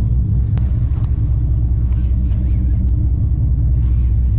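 Steady low drone of the boat's engine running, with one sharp click about half a second in.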